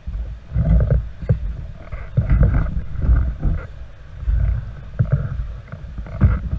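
Canoe paddle strokes splashing in choppy river water every second or so, over low, uneven rumbling from wind and water on the microphone.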